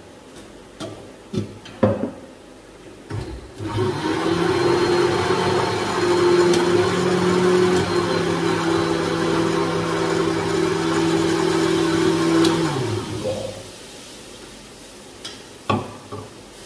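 Electric mixer grinder with a steel jar blending a mango shake: a few metal clinks as the jar and lid are set in place, then the motor runs with a steady whirring hum for about nine seconds before it switches off and winds down. More clinks follow near the end.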